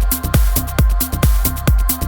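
Trance music soundtrack: a steady four-on-the-floor kick drum at a little over two beats a second, with off-beat hi-hats over held synth chords.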